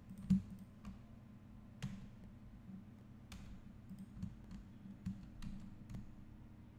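Computer mouse clicks and keyboard key presses at an irregular pace, about a dozen short clicks, over a faint steady low hum.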